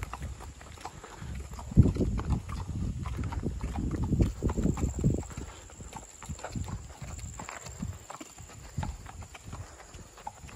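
Ponies' hooves clip-clopping at a walk on an asphalt road, with a louder low rumble from about two to five seconds in.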